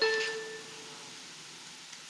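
The lower second note of a New York subway train's two-tone door-closing chime, fading out over about half a second, followed by a steady hiss of train noise. It is a recording played back through a laptop's external speaker.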